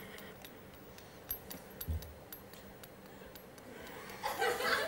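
A bunch of keys jingling lightly in a hand, a few small scattered clinks, then a short burst of laughter near the end.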